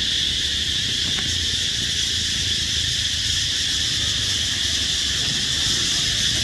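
Steady, unbroken high-pitched drone of an insect chorus in the forest canopy, with a low rumble underneath.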